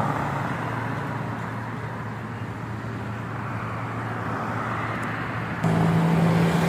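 Steady road-traffic noise of bus and car engines running in slow, jammed traffic. About five and a half seconds in, a louder, steady low engine drone cuts in suddenly.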